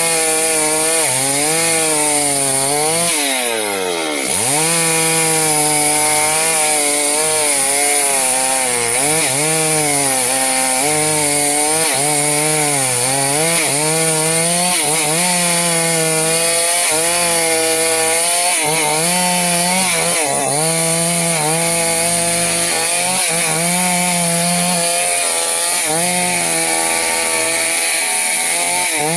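Chainsaw cutting through teak wood, its engine pitch rising and falling over and over as the chain is loaded. About four seconds in, the engine pitch sags sharply under the cut and then picks back up.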